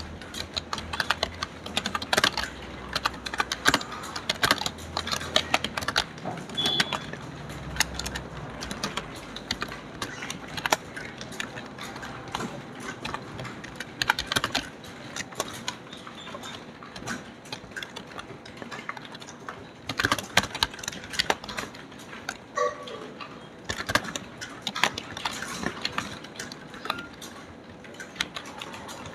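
Typing on a computer keyboard: rapid, irregular key clicks, thinning out for a few seconds around the middle before speeding up again.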